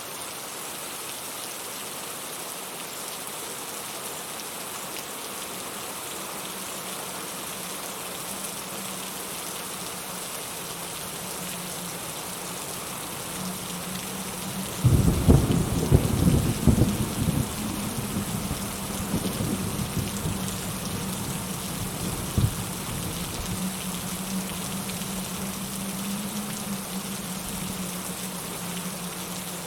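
Steady heavy rain throughout. About halfway through, a loud thunderclap breaks in and rumbles for a few seconds. A shorter crack of thunder follows about seven seconds later.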